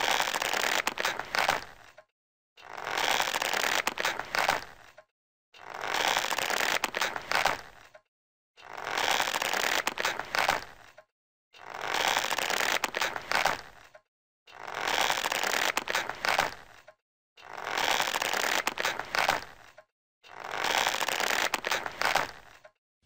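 A rope creaking and scraping as a hanged body sways, in eight even strokes about every three seconds, each lasting two to two and a half seconds.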